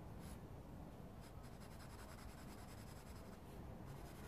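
Pencil drawing on paper: several faint, short scratching strokes with pauses between them.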